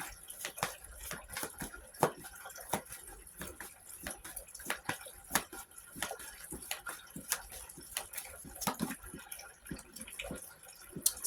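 Irregular light clicks and taps, roughly one to three a second, of tarot cards being handled and laid down on a table.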